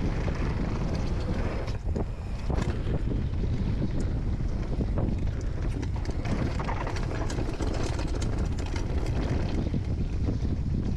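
A downhill mountain bike riding a loose gravel and dirt trail, with wind buffeting the microphone: a steady rumble of tyres and wind, crossed by frequent sharp clicks and rattles.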